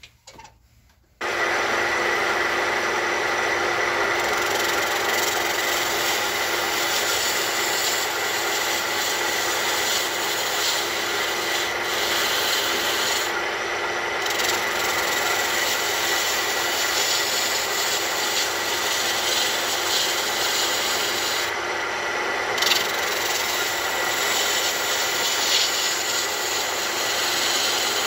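Wood lathe spinning a wooden blank while a homemade turning tool, made from a rotary-hammer chisel blade, cuts it: a steady scraping hiss of the cut throwing off long shavings, over the lathe's whine. It starts abruptly about a second in.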